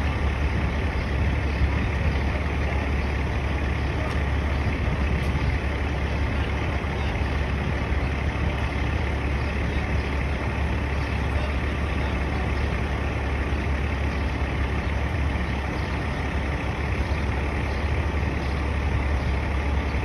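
Heavy diesel engine running steadily with a constant deep hum.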